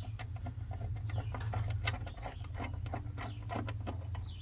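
Hand tools and metal mower parts clicking and clinking irregularly as the lawn mower is being taken apart, over a steady low hum.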